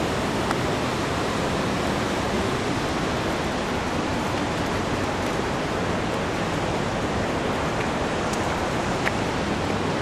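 Steady rushing noise of the Upper Falls of the Yellowstone River, even and unbroken.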